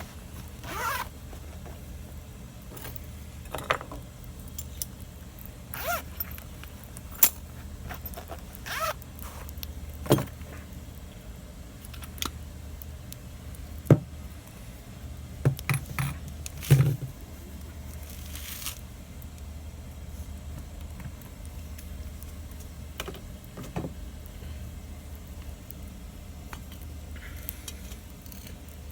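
Wood fire crackling, with irregular sharp pops and snaps over a steady low rumble; the pops thin out after about the first eighteen seconds.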